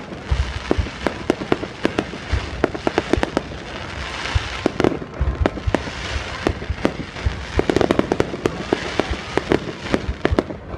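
Aerial fireworks display: a dense, unbroken run of sharp bangs, several a second, over continuous crackling from the bursting shells.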